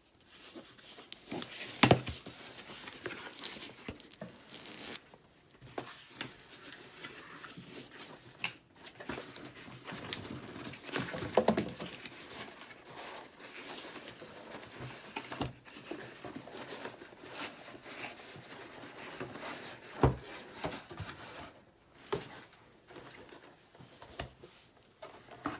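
Funko Dorbz box packaging being opened and handled by hand: cardboard and plastic rustling, crinkling and tearing, with scattered sharp clicks and knocks.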